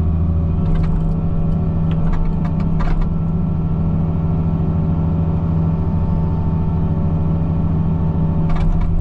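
Excavator diesel engine and hydraulic brush-cutter head running steadily, heard from inside the cab. A few brief crackles come through, about a second and three seconds in.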